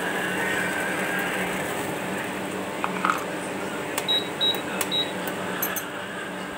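Water at a rolling boil in a stainless steel saucepan on an induction cooktop: steady bubbling over a faint hum. A few light clicks come about three seconds in as tea leaves go into the pan, followed by three short high beeps and some sharp ticks.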